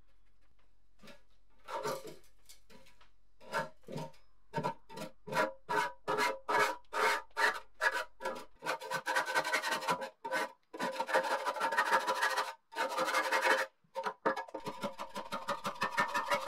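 Metal putty knife scraping lifted paint off a rusty steel plate, first in short strokes about two a second, then in longer continuous scrapes with brief pauses. The scrapes carry a steady ringing tone.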